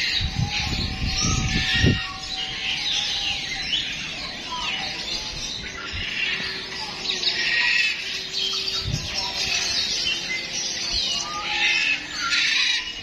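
Many birds chirping and squawking together in a dense, continuous chatter of short high calls, with low rumbling bumps in the first two seconds.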